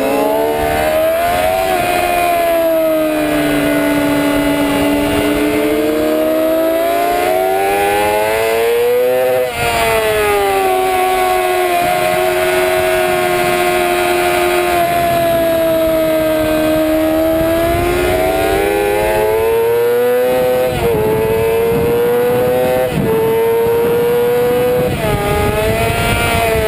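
Sport motorcycle engine running hard on a race track, heard from the onboard camera with wind noise: the revs climb and fall through the corners, dip briefly about nine seconds in, and break several times in quick succession near the end as the rider changes gear.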